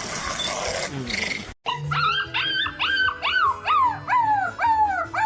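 About a second and a half of rough noise cuts off abruptly. Then a dog gives a rapid series of short whining yelps, about two a second, each falling in pitch, over faint music.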